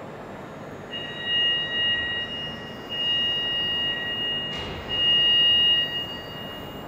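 Inside the VLT Unit Telescope 3 enclosure, a high-pitched steady tone of several pitches starts about a second in and swells three times, each swell about a second long, over a steady machinery hum; a short hiss is heard near the middle.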